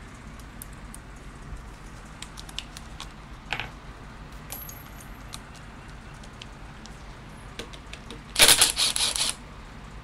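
Light metal clinks and handling taps, then about eight seconds in a loud burst of just under a second: a cordless drill-driver with a socket spinning out a 10 mm bolt from the air filter housing of a Honda GCV160 mower engine.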